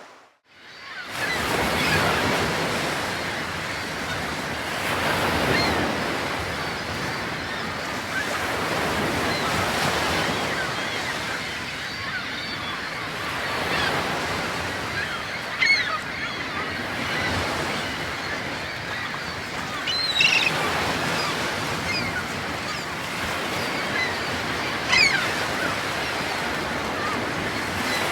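Ocean surf: waves washing in slow swells, starting about a second in, with three short high cries rising above it, like seabirds calling.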